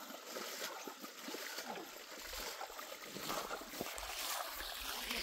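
Water sloshing and splashing as a hand stirs it in a plastic-bag-lined bucket, with a low rumble of handling noise in the second half.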